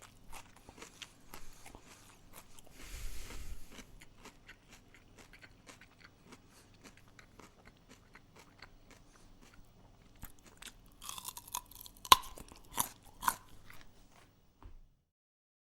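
A person chewing crunchy food with the mouth close to the microphone: a steady run of small crackling crunches, louder about three seconds in, with a few sharp, loud crunches near the end before it stops.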